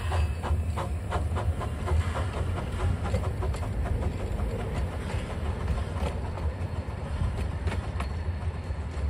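A small-gauge live-steam train, locomotive number 13 with its passenger cars, rolling past and pulling away. Rhythmic clacking beats, about four a second, fade after about three seconds, leaving a few clicks over a steady low rumble.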